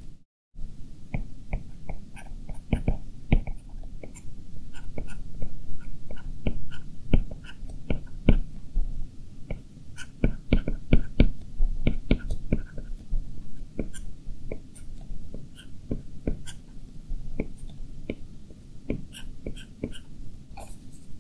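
Stylus tapping and stroking on the glass screen of a 12.9-inch iPad Pro while drawing: a dense, irregular run of short ticks and taps, several a second.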